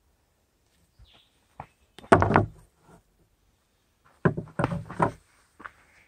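Aluminium camping pans clanking and knocking as they are lifted off a campfire grill grate and set down on a wooden picnic table. A few light clicks, then a loud clatter about two seconds in and another run of knocks just after four seconds.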